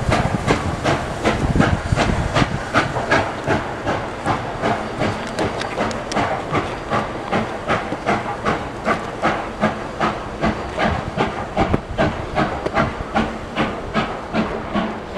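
Reading T1 No. 2102, a 4-8-4 steam locomotive, working under steam: steady, evenly spaced exhaust chuffs, about three a second, over a continuous hiss of steam.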